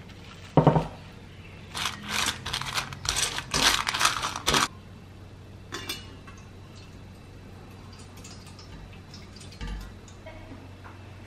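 Putting together dog food in stainless steel bowls: a sharp knock about half a second in, then about three seconds of plastic wrap crinkling and wet food being scraped and squished into dry kibble. The second half is much quieter.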